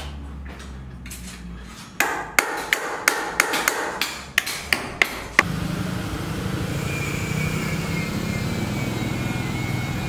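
A hammer striking metal about ten times in quick, uneven succession, each blow ringing briefly. About halfway through the strikes stop and give way to a steady background hum with a faint high whine.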